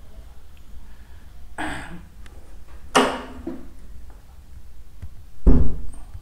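A man coughing three times close to the microphone, the last the loudest, over a faint low hum.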